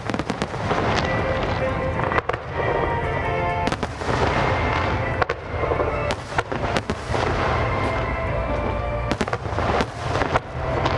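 Aerial fireworks display: repeated sharp bangs of bursting shells over continuous crackling, with music playing underneath.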